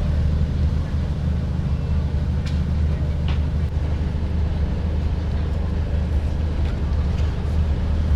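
Outdoor night-market ambience: a steady low rumble under a faint hubbub, with a few light clicks.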